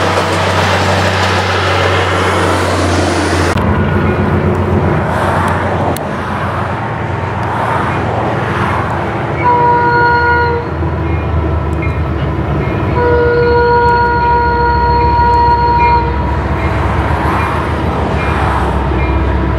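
Passenger train cars rolling past with rail clatter, then a CN freight train's locomotive horn sounds one short blast and one longer blast over the steady low rumble of the approaching diesel locomotives.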